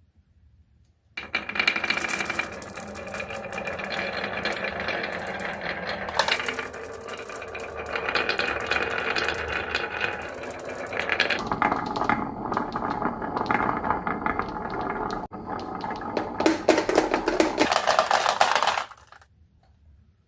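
Many marbles rolling and clattering down a marble run track: a dense stream of clicks and rattling that starts abruptly about a second in and stops sharply near the end.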